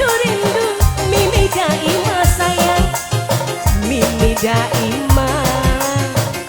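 Tarling dangdut band playing: a melody that slides and bends in pitch over a steady beat of low drum and bass hits.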